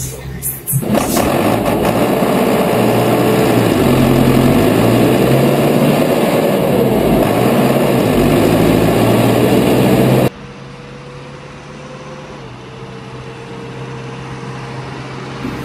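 Tractor diesel engine running while driving on a road, heard loudly from on board, its note rising and falling. About ten seconds in it cuts abruptly to a quieter, steadier engine hum of a tractor driving along the road.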